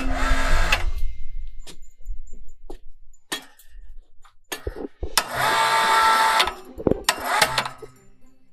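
Electric hoist motor running in three separate runs, about a second at the start, a longer one a little past halfway and a short one soon after, as it lifts a Ford 351 Windsor engine on chains.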